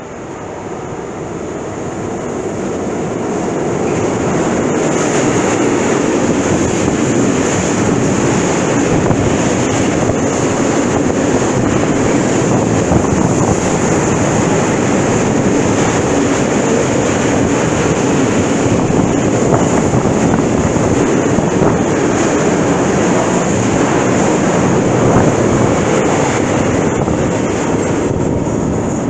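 Freight train of tank wagons passing close by: the noise builds over the first few seconds as the train arrives, then the wagons run past with a steady heavy rumble and clatter of wheels on rail, easing slightly near the end.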